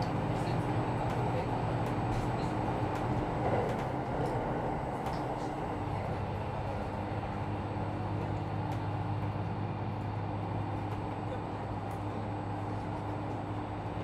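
Steady running noise inside a moving diesel railcar: an even rumble with a low hum, and a few light clicks and knocks in the first half.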